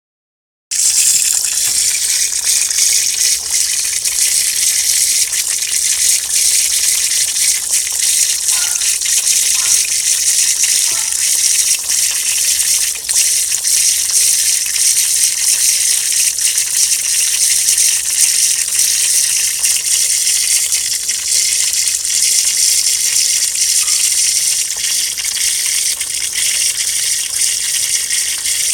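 Water pouring out in a steady rush, starting abruptly just under a second in and running on without a break.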